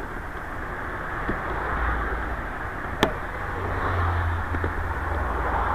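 Steady street traffic rumble, swelling as vehicles pass, with a single sharp click about halfway through.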